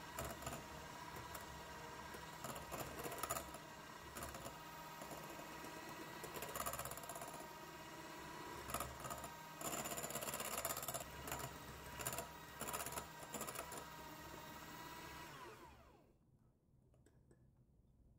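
KitchenAid electric hand mixer running steadily, its wire beaters whipping thick French meringue in a glass bowl, with louder rattles now and then. About three-quarters of the way through the motor is switched off and its hum falls in pitch as it winds down, leaving faint room tone.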